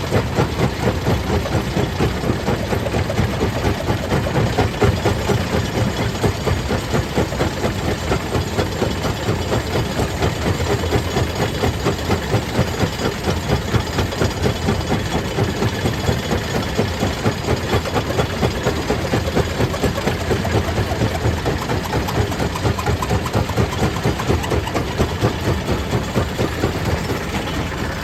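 Stone crusher machinery running steadily with a fast, regular pulsing beat.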